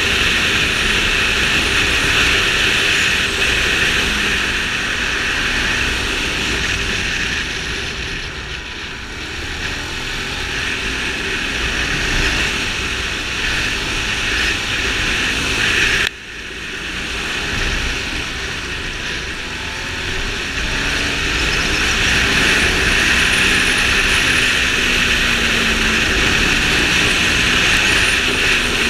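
Loud wind rush on the microphone over a Ducati Multistrada 620's air-cooled L-twin engine running at speed, its note rising and falling with the throttle. The level drops sharply for a moment just past halfway, then builds again.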